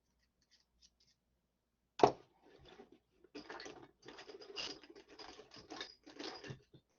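Small hand tools being handled: one sharp knock about two seconds in, as of a tool set down on a hard surface, then a few seconds of scraping, clicking and light clatter as tools are moved and sorted.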